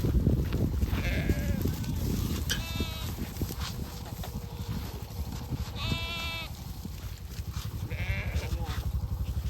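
Sheep bleating, about four calls, the clearest two about three seconds apart, over a steady low rumble.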